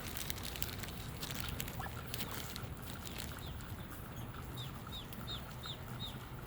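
Ducklings peeping: a run of about five short, high, falling peeps, evenly spaced, in the second half.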